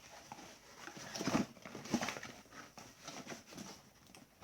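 Irregular rustling and light clicks of paper manuals and small plastic packaging being handled, with a brief duller thump about a second in.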